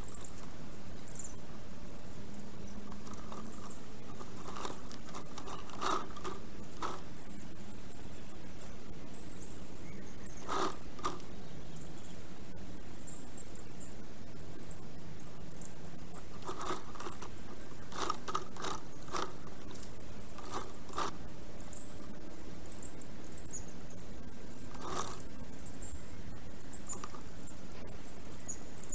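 Thin, high, squeaky twittering of small birds in the forest, with scattered short clicks and knocks of twigs as a black stork works the sticks of its nest.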